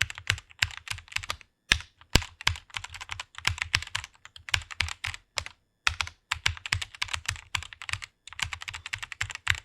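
Fast typing on a computer keyboard: rapid runs of key clicks, several a second, broken by a few short pauses.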